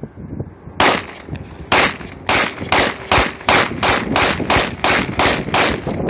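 Glock 19 Gen 3 9mm pistol fired in a rapid string of about ten shots, roughly two a second, beginning just under a second in.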